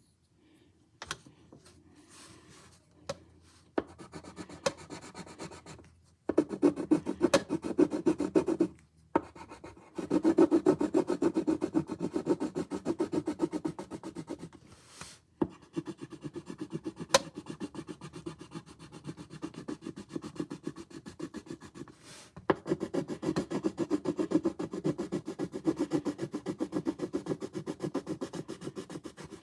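Coloring in a drawing by hand: fast back-and-forth scribbling strokes of a coloring tool rubbing on paper, in several long bouts with short pauses between them.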